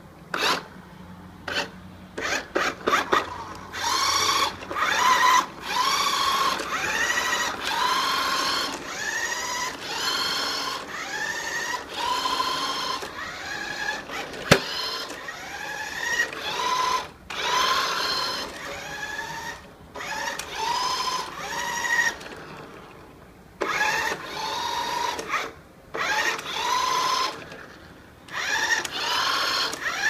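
Small electric drive motor and gears of a 1:14 scale RC toy car whining in repeated bursts of about a second each. The pitch rises as the car speeds up with each pull of the throttle. A few short clicks come near the start, and one sharp click about halfway through.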